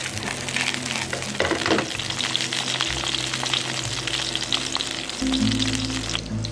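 Sausages frying in a pan: a steady sizzle full of fine crackles and pops, which drops away shortly before the end. Background music with steady low notes plays underneath.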